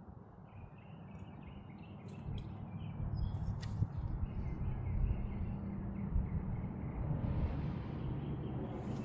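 Small birds chirping repeatedly in the background, with a low rumble that builds up two to three seconds in and stays, louder than the chirps.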